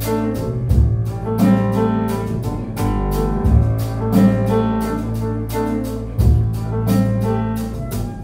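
A small band playing a slow instrumental passage with no singing: long double-bass notes changing every two to three seconds under repeated piano and plucked string notes.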